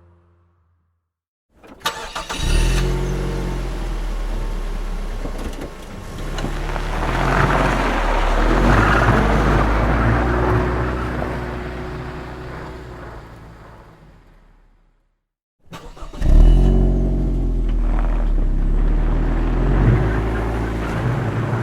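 Car engine started twice: each time a short burst of starter cranking, then the engine catches and runs. The first run swells in loudness and fades out; the second starts louder and its pitch climbs near the end as it revs up.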